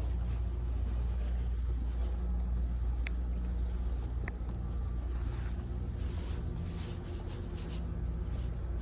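A steady low hum, with two faint clicks about three and four seconds in.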